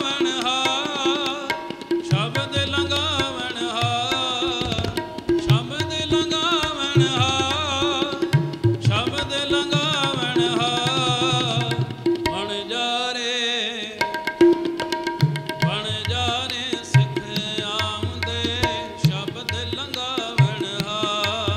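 Sikh devotional singing with vibrato, accompanied by hand drums playing a steady rhythm, with a brief break in the drumming about halfway through.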